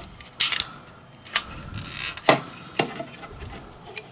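Hard plastic parts of a Bandai RG Evangelion transport-platform model kit clicking and knocking as they are pressed back into place by hand. There are a few separate sharp clicks, with a cluster near the start and the loudest a little past two seconds in.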